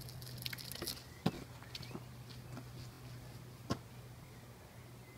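A few short, sharp knocks close to the microphone, the clearest two about two and a half seconds apart, over a faint steady low hum.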